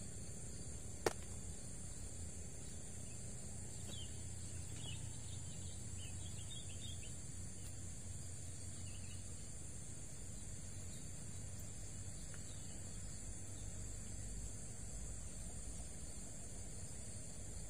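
Steady high-pitched chorus of insects over a low steady rumble, with one sharp click about a second in and a few faint bird chirps a few seconds later.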